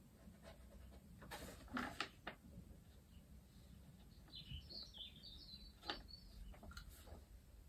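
Near silence in a quiet room, broken by a few soft paper rustles as printed script pages are handled, and faint high chirps about four to five seconds in.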